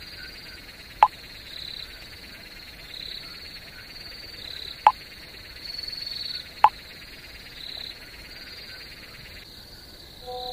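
Night ambience of insects chirring steadily at a high pitch. Over it come three short sharp pops of a chat-message sound effect, about a second, five seconds and six and a half seconds in, as message bubbles appear.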